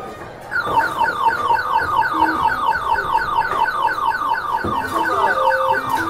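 Skee-ball arcade machine sounding an electronic alarm-like warble of short falling beeps, repeating several times a second for about five seconds. A single dull thud comes near the end, followed by a few lower stepped beeps.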